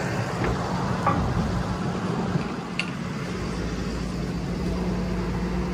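An engine running at a steady idle hum, with a few light clicks and knocks over it; the low rumble grows stronger about three and a half seconds in.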